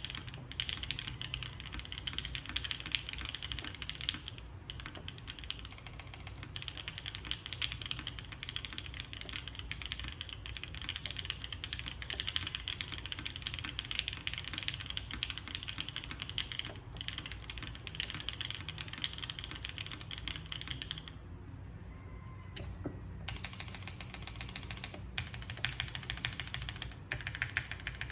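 Continuous typing on a Rosé TKL mechanical keyboard: lubed and filmed JWK Marshmallow linear switches on a top-mounted polypropylene plate, with GMK keycaps, giving a dense stream of key clicks. About three quarters of the way through, the typing pauses for roughly two seconds, then resumes.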